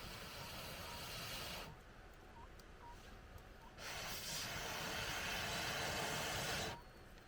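Two long blasts of air hissing through a fire-blow pipe into a wood fire, the first tailing off about a second and a half in and the second lasting about three seconds, with the fire rustling quietly between them.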